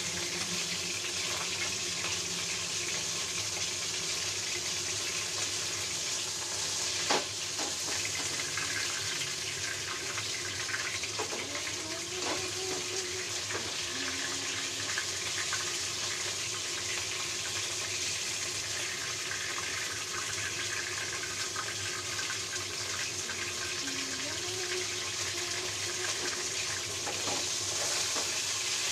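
Flour-coated fish fillet pieces sizzling steadily in hot oil in a stainless steel wok, with one sharp knock about seven seconds in.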